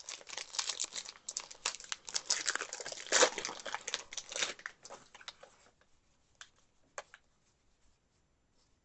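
Trading-card pack wrapper being torn open and crinkled in the hands: dense crackling for about five and a half seconds, loudest about three seconds in. Then two faint clicks, and little else.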